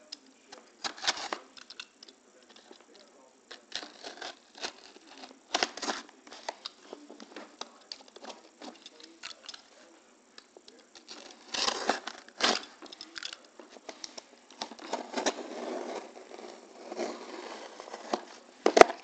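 A utility knife slicing through packing tape on a cardboard shipping box: irregular scraping and tearing strokes with cardboard rustling as the box is handled, and a sharp click near the end.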